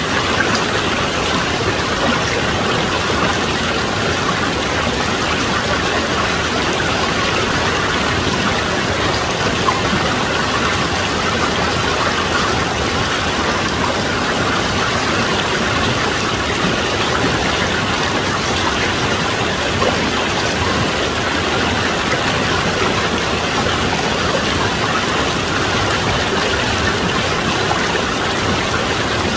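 Mountain valley stream rushing steadily, an unbroken wash of flowing water.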